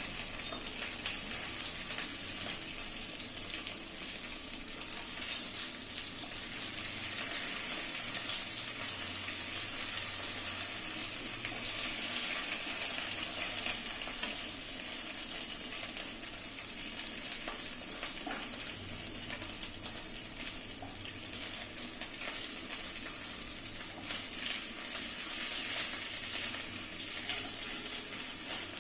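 Fried black pomfret pieces sizzling steadily in hot oil in a kadai, with light scrapes and taps of a wooden spatula in the pan as the finished fish is lifted out.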